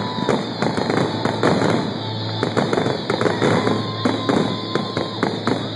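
Aerial fireworks bursting in rapid succession, many sharp bangs close together, with music playing underneath.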